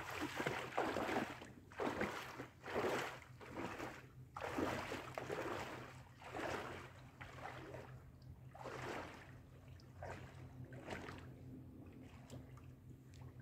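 A person wading out through shallow lake water, legs sloshing and splashing with each stride at about one step a second, growing fainter as he moves away. A steady low hum runs underneath.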